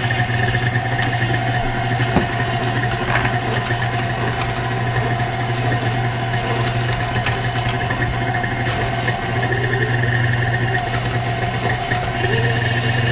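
KitchenAid stand mixer motor running steadily, driving its slicer/shredder attachment as it shreds chunks of Monterey Jack cheese. It is a constant hum with a few light clicks from the cheese in the drum.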